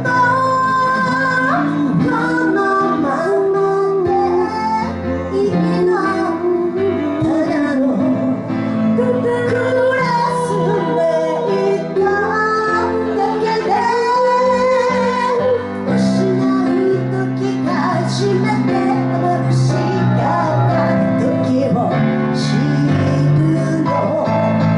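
A voice singing a Japanese pop song, accompanied on piano by the singer.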